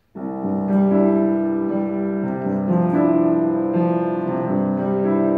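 Piano accompaniment starting suddenly and playing the slow introduction to a song: held chords that change every second or so.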